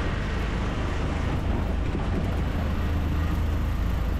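Tuk-tuk moving at speed, heard from inside its open-sided passenger cabin: a steady low rumble of the vehicle on the road, with wind buffeting the microphone.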